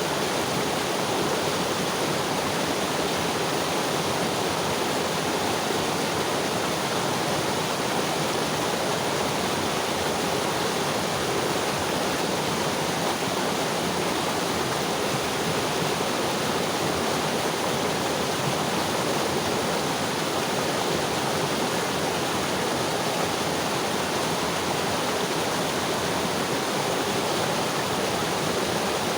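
Mountain river flowing over rocks: a steady, dense rush of water.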